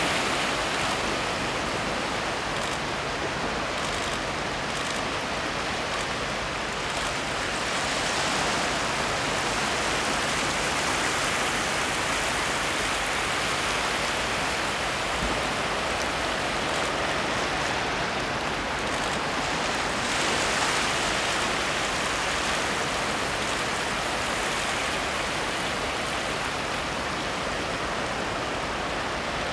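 Sea water washing over and around shore rocks: a steady rushing hiss of small waves that swells gently now and then.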